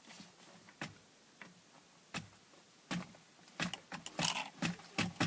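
A series of sharp taps and clicks. A few come spaced about a second apart, then they come quicker and louder from about three and a half seconds in.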